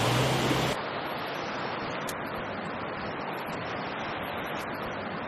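A pickup truck's engine hum and water splashing as it wades through a river, cutting off abruptly under a second in. The steady rush of a shallow rocky stream with small rapids follows.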